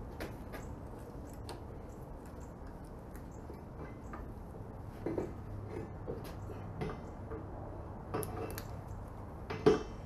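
Scattered metal clinks and knocks as the heavy steel end housing of a power box rake is worked onto its shaft and bearing, more frequent in the second half, with the loudest knock near the end. A low steady hum runs underneath.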